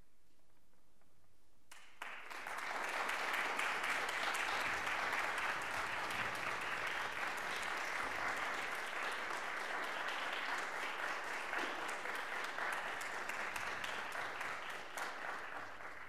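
Audience applauding. The clapping begins suddenly about two seconds in, holds steady, and tapers off near the end.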